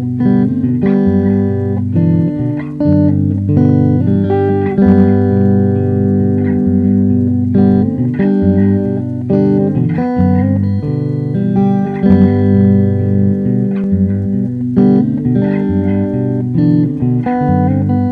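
Background music: a plucked guitar piece, played at an even, unhurried pace.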